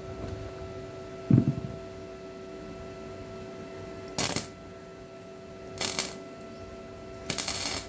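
Arc welder laying short tack welds: three brief bursts of crackling hiss, each under a second, over a steady hum. A dull thump sounds about a second and a half in.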